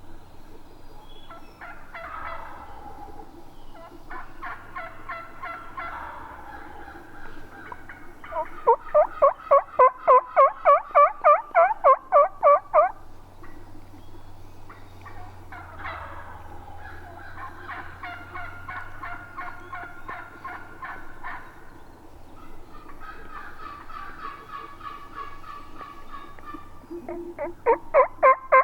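Wild turkeys gobbling several times, each call falling in pitch and breaking into a quick rattle. There are two loud runs of evenly spaced calls at about four a second: one in the middle and one starting near the end.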